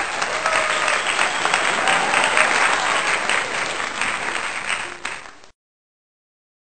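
Crowd applause used as a sound effect: a dense patter of many hands clapping that starts abruptly, dies away near the end and stops after about five and a half seconds.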